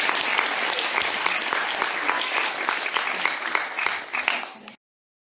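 Audience applauding, dense clapping that thins out near the end and then cuts off abruptly just under five seconds in.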